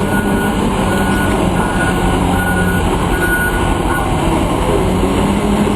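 A heavy vehicle's reversing alarm beeps evenly, about six beeps that stop about four seconds in, over the steady running of its diesel engine.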